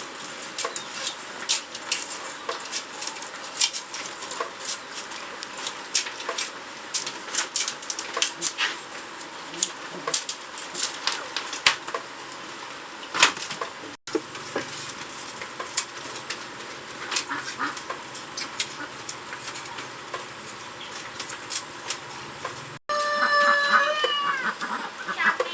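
Irregular sharp clicks and crackles run throughout. Near the end, a chicken gives a series of short pitched calls.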